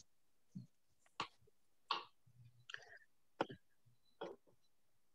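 Faint, short clicks and small noises, about one a second and irregularly spaced, with near silence between them, heard over a video call.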